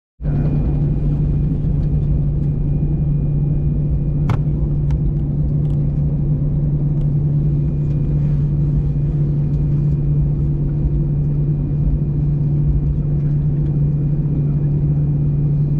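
Airbus A320 cabin noise on the ground, engines at idle: a steady low hum over a rumbling drone, with a faint steady high whine above it. A single sharp click sounds about four seconds in.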